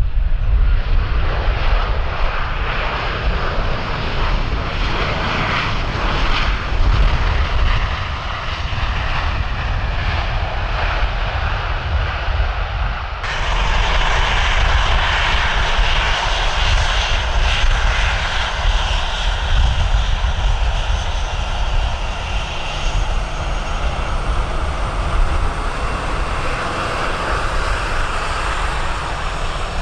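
Jet airliner engines running loud and steady as the aircraft moves on the runway, with a deep rumble underneath. The sound changes abruptly about thirteen seconds in.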